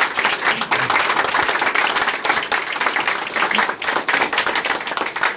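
A small group of people applauding, many hands clapping in a dense, steady run that thins out near the end.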